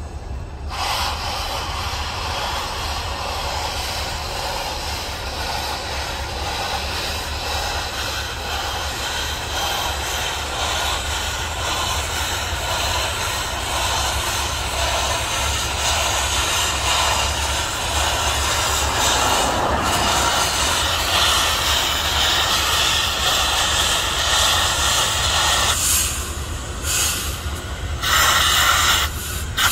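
Union Pacific Big Boy 4014, a 4-8-8-4 articulated steam locomotive, running at speed with steam hissing around its cylinders. It blends into a steady rush with wind and road noise from a car pacing it.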